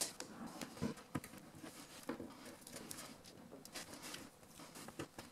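Fingers peeling the protective backing film off strips of double-sided tape on a MacBook's replacement LCD glass panel, with light handling of the glass. The sound is faint: scattered small clicks and crinkles at an irregular pace.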